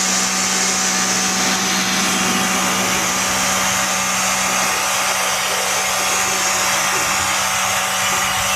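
A motor-driven machine running steadily, a constant hum with a strong hiss over it, like a blower or a pressure-washer pump.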